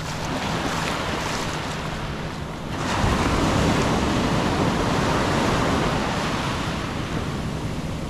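Ocean surf washing up the sand at the waterline: a wave comes in about three seconds in and its wash is loudest for a few seconds before easing off.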